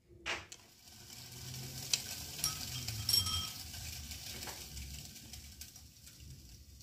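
Boiled noodles and their hot water being drained into a metal colander: a knock of metal on metal, then water rushing and trickling through the colander's holes, with a few sharp metal clinks.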